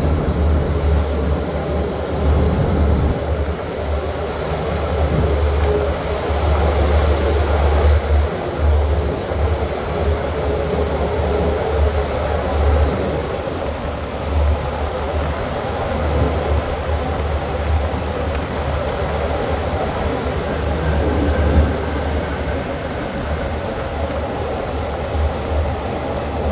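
Passenger train heard from on board while running along the track: a steady rumble of wheels and running gear over a strong low hum that comes and goes.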